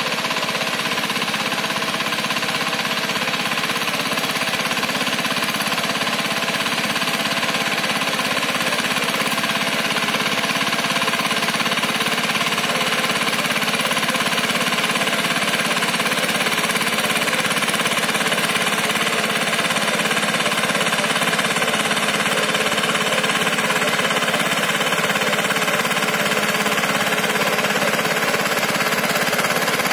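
Power tiller's single-cylinder diesel engine running steadily with a rapid knocking chug as it works the field, growing a little louder as it comes nearer.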